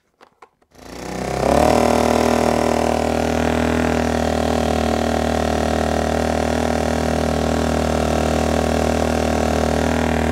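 Impax IM800i inverter generator's small 40cc four-stroke petrol engine starting up about a second in, after a few light clicks, then running steadily at an even speed. It is running properly after being taken apart and reassembled.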